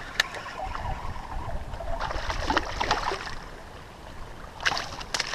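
Water lapping and splashing around a small fishing boat, with scattered light knocks and ticks.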